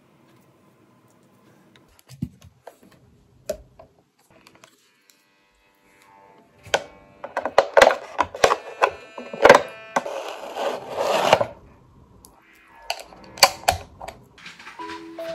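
Handling of a plastic box of face sheet masks: sharp clicks and clatter as the lid is worked open, then rustling as a wet sheet mask is peeled out. It is mostly quiet for the first few seconds; the handling comes in a dense run about halfway through, with a few more clicks near the end.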